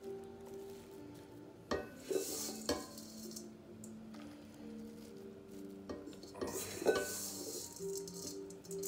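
Dry crumble topping of oats, flour and brown sugar scooped by hand from a steel mixing bowl and scattered over apple slices in a cast-iron Dutch oven: a grainy rustle twice, about two seconds in and again about seven seconds in, with a few light knocks.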